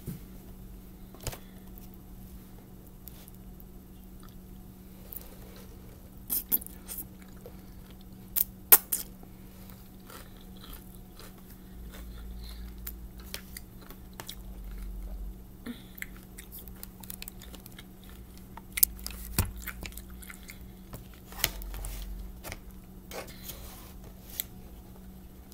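Close-up eating sounds: spaghetti being chewed, and a metal fork stirring, twirling and clicking against a plastic bowl, with a few sharp clicks standing out. A steady low hum sits underneath.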